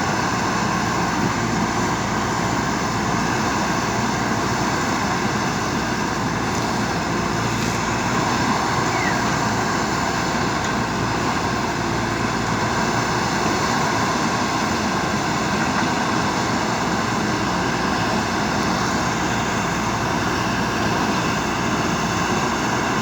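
A machine running at a steady, unchanging speed, giving a continuous hum made of many even tones, with no rises, falls or knocks.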